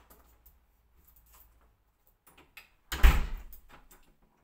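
A wooden front door closing: a few faint clicks of handling, then one loud impact about three seconds in that dies away quickly.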